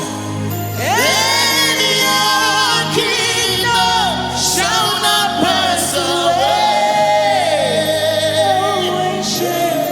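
Gospel worship song: singing in long, gliding vocal lines without clear words, over sustained instrumental chords.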